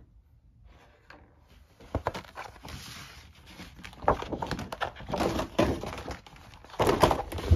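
A new, folded laminated gaming flip-mat being unfolded and handled. The stiff sheet rustles and crackles at its folds, with a few knocks, starting about two seconds in and growing busier toward the end.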